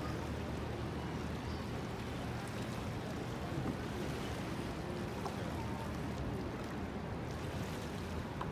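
Steady low rumble and hum of riverside city ambience, with no distinct event standing out.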